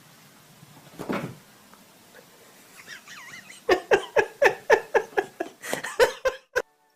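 A domestic cat giving a rapid series of about a dozen short cries, each falling in pitch, about four a second, after a few faint chirps; the series cuts off abruptly near the end.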